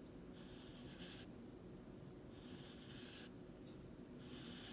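Drawing tool scratching across paper in three separate strokes, each just under a second long.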